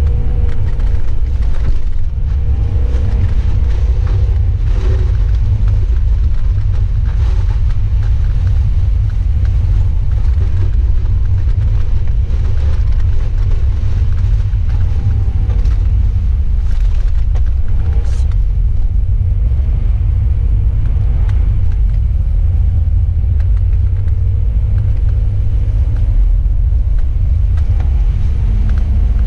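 Steady low rumble of a car's engine and road noise, heard from inside the cabin while it drives.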